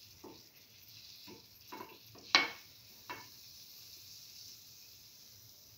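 Chickpea-flour fritters frying in the oil-filled cavities of a cavity pan with a faint, steady sizzle. A utensil knocks and scrapes against the pan five times, the loudest knock about two and a half seconds in.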